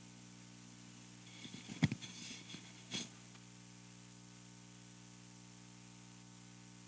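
Steady electrical hum and hiss from the recording setup, with a brief patch of rustling and two sharp clicks about two and three seconds in.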